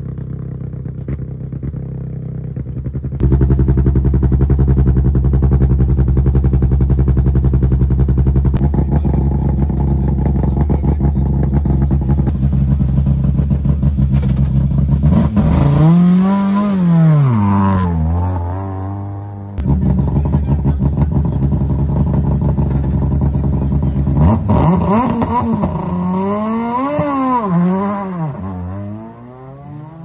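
Renault Clio Super 1600 rally car's engine idling steadily, then blipped: one rev that rises and falls about halfway through, then three or four quick revs in a row near the end.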